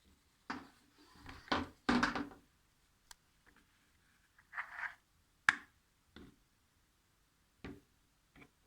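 Scattered clicks, knocks and short scrapes of parts and tools being handled during work on a kitchen range hood's fan motor. The densest handling comes in the first two seconds, then single sharp clicks every second or two.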